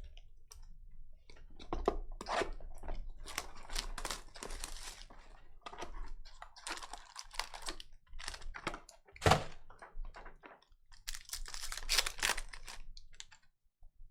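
Packs of 2020-21 Donruss Optic basketball cards being torn open and the cards handled. The wrappers crinkle and tear in irregular bursts, with one sharp click a little past the middle.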